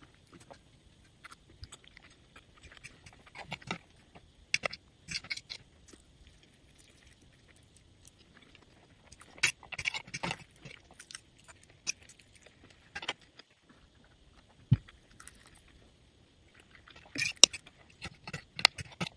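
Close-up eating sounds: chewing mouthfuls of fried instant noodles in irregular bursts, with the metal fork now and then clinking sharply on the plate.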